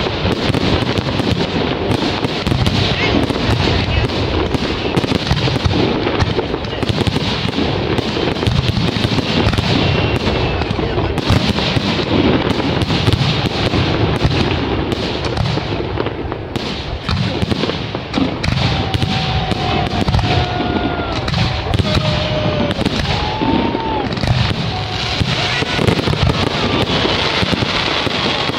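Fireworks display: a dense, continuous barrage of aerial shell bursts and crackling, with a few short whistles about two-thirds of the way in.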